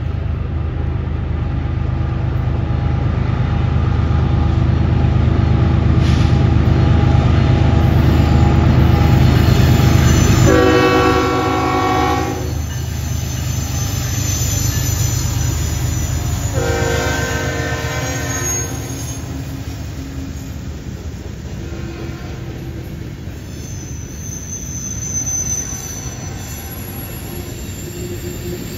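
CN diesel freight locomotives rumbling past slowly, with two horn blasts partway through, each about two seconds long. Freight cars then roll by on the curve, with a high wheel squeal near the end.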